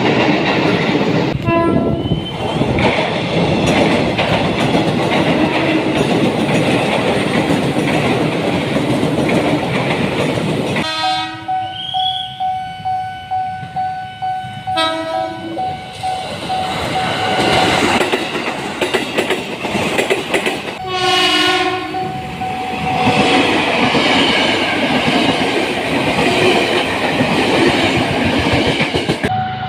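KRL commuter electric trains sounding their horns over the rumble and clatter of a passing train. There is a short blast about two seconds in, a long one through the middle, another a few seconds later and a last one at the very end.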